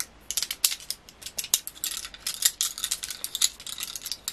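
Wooden makeup brush handles being handled, knocking and clicking against each other in a quick, irregular run of light taps and clicks.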